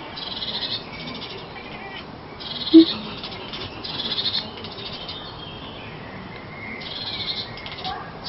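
A cat chattering and a bird chirping back and forth: four bursts of rapid high twittering, with one short, loud, low call nearly three seconds in.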